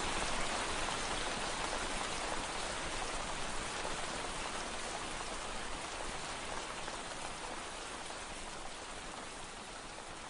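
Steady rain pattering on window glass, a dense even hiss of drops that grows gradually quieter.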